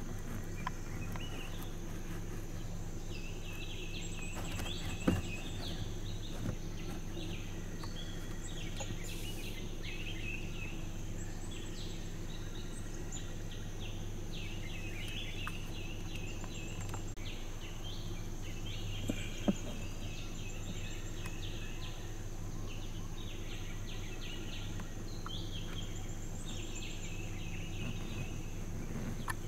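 Forest ambience: birds calling over and over and a steady high insect drone, over a constant low hum. Two sharp snaps stand out, about five seconds in and again near twenty seconds.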